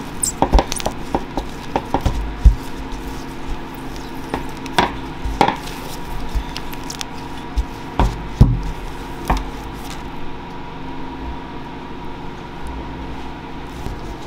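Wooden rolling pin working dough on a stainless steel counter: irregular knocks and clicks over roughly the first ten seconds, then a quieter stretch. A steady hum runs underneath.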